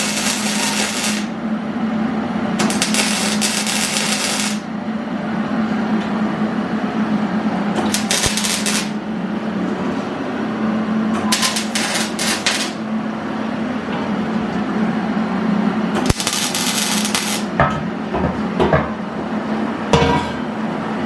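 A steady low motor hum runs throughout, typical of a running air compressor. Over it come about six bursts of hissing spray, each one to two seconds long, typical of a paint spray gun being triggered, with a few light knocks in between.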